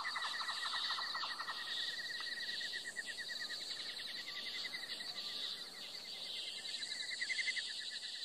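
Chorus of insects chirping: a steady high trill with rapid, evenly pulsed chirps beneath it, and a lower pulsing chirp that stops about a second and a half in.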